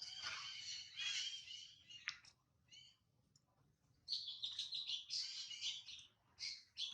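Baby monkey crying in high-pitched squeals and chirps, in two bursts with a short pause between them.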